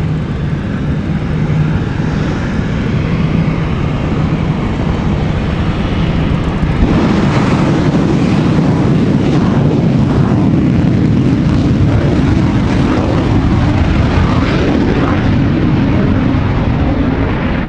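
Loud, steady turbine-engine noise of the kind made by the racing Cobra helicopter or the jet truck. It swells about seven seconds in, then cuts off abruptly near the end.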